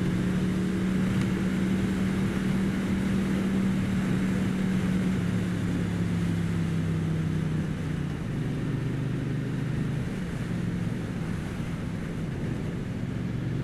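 Triumph Street Twin's 900 cc parallel-twin engine running steadily on the road, with wind noise on the microphone. About halfway through, the engine note drops to a lower steady pitch as the bike shifts up a gear.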